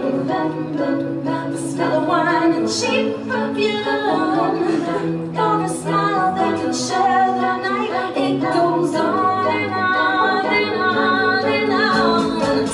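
Unaccompanied a cappella singing, a sung melody changing note continuously.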